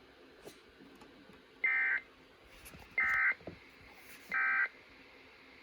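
Emergency Alert System SAME end-of-message data tones: three short, identical bursts of buzzing digital data, each about a third of a second long and spaced about a second and a half apart. They signal that the alert message is over.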